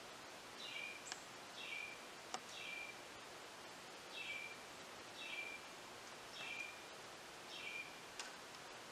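A bird calling faintly: a short falling run of notes, repeated about once a second, over a soft steady hiss, with a few sharp clicks.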